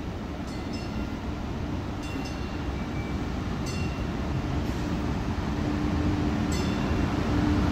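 MBTA Green Line light-rail train approaching through the subway tunnel into the station, its rumble growing steadily louder. A few short metallic pings ring out over it.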